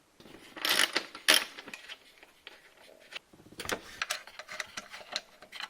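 Irregular clicking and clattering of small parts being worked off a car seat by hand, with two louder clatters about a second in and lighter clicks later on.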